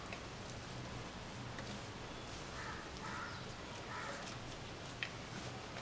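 Quiet handling of a rolled banana-leaf packet as it is tied with a strip of banana fibre, with a single soft click about five seconds in. A few faint short calls sound in the background around the middle and near the end.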